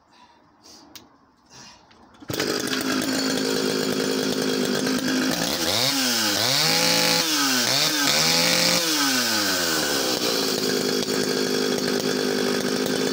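Echo CS-650EVL two-stroke chainsaw engine starting up abruptly after a few faint clicks, then idling steadily. Around the middle it is revved up twice, pitch rising and falling, before settling back to idle.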